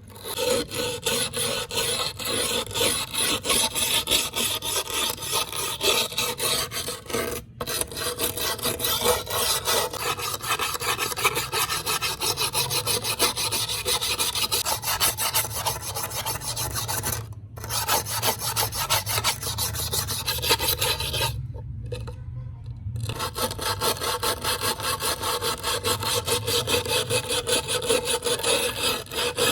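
Abrasive hand-working of a knife blade: fast, even back-and-forth rubbing strokes, like sanding or filing rust off metal, breaking off briefly three times.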